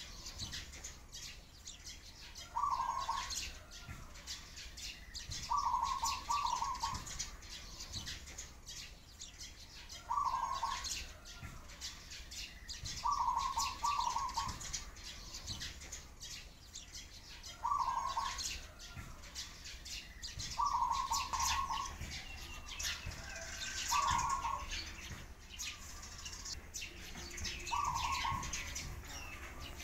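A dove cooing in short phrases that repeat about every three seconds. Sparrows chirp continuously underneath.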